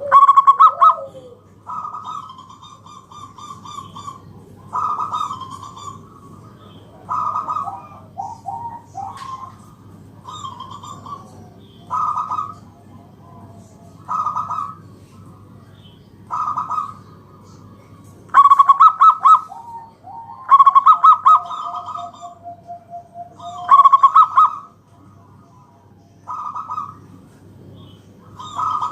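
Zebra dove cooing its staccato song over and over, a short phrase about every two seconds. The phrases come louder and longer near the middle, one of them trailing into a lower held note.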